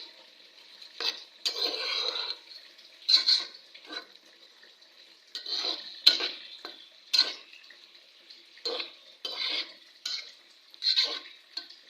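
Spoon stirring and scraping khichdi in a cooking pot, in irregular short strokes about once a second.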